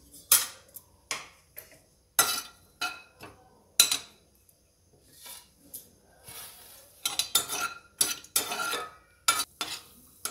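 Steel slotted spoon clinking and scraping against an aluminium kadai while stirring cashews frying in oil: a string of irregular sharp clinks, with a quieter gap in the middle and a close run of them near the end.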